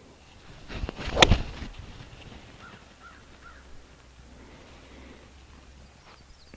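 Golf swing with a 5-iron from light rough. A short swish ends in one sharp click as the clubhead strikes the ball about a second in. Around two seconds later a bird calls faintly three times.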